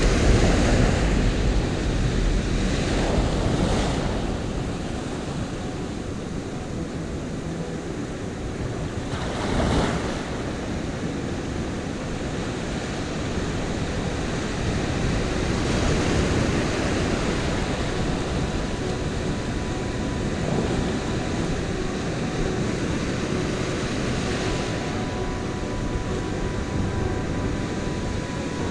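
Ocean surf breaking and washing up the beach through the shallows, swelling and easing with each wave, with a sharper surge about ten seconds in. Wind buffets the microphone.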